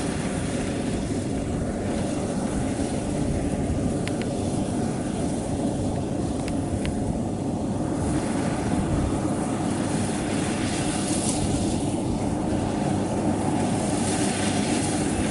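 Kubota combine harvester running steadily at working speed, its engine and threshing machinery giving a constant mechanical drone.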